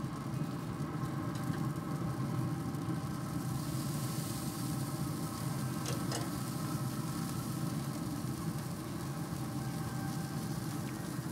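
Grilla Grills Silverbac pellet grill's fan running with a steady, even hum, with a short click of metal tongs on the grate about six seconds in.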